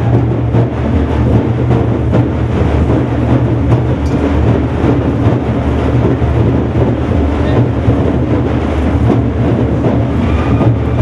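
Several large frame drums beaten with sticks in a dense, loud, continuous drumming, with a heavy low rumble underneath.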